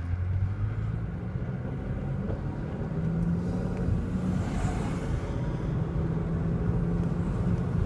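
Car engine pulling away from a standstill and accelerating, heard from inside the cabin, getting louder at the start with its note stepping up about three seconds in, over tyre noise on a wet road. An oncoming box truck passes with a brief swell of hiss about halfway through.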